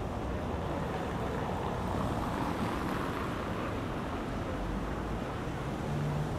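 Steady street ambience of a busy shopping street: traffic and passers-by blending into an even background noise.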